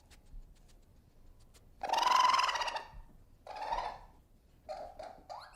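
An animal calling: one long call about two seconds in, a shorter call after it, then a few quick short calls near the end, the last one rising in pitch.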